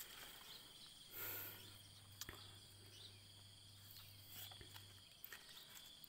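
Near silence: faint outdoor ambience with a steady high-pitched insect chirring and a low hum, broken by a few faint ticks.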